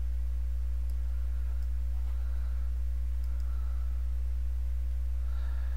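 Steady low electrical mains hum from the recording setup, unchanging, with fainter evenly spaced overtones above it.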